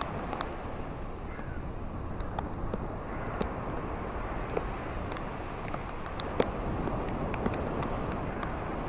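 Steady rain with a low, even wash of noise underneath and scattered sharp drops ticking at irregular intervals.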